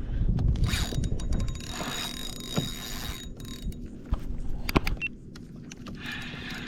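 Fishing reel being cranked, with a whirring, clicking retrieve and scattered sharp clicks, after a gust of wind on the microphone at the start.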